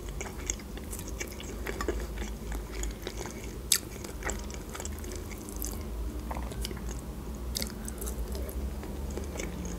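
Close-miked, moist mouth sounds of chewing cooked mackerel, with small scattered clicks as the fish is picked apart with the fingers and eaten.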